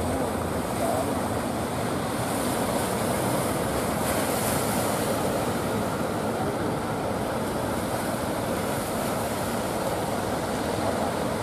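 Ocean surf breaking and washing over the rocks at a river mouth: a steady, even rush of waves.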